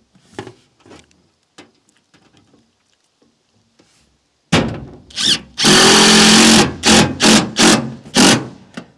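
Power drill driving a screw into metal roofing: a few light knocks, then about halfway in a second-long steady run of the drill, followed by about four short bursts as the screw is run down.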